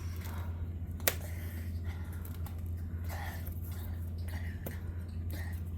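Plastic magnetic letters being handled and clicked onto a refrigerator door: one sharp click about a second in and a few fainter taps, over a steady low hum.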